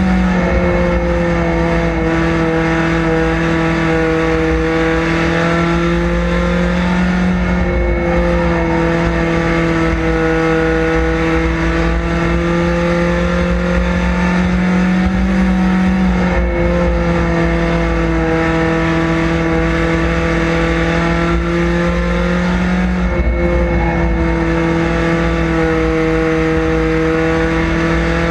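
Chevrolet Cavalier street stock race car's engine at racing speed, heard from inside the cockpit as a steady loud drone. Its pitch dips and climbs back about every seven to eight seconds as the driver eases off and gets back on the throttle through the turns of the short oval.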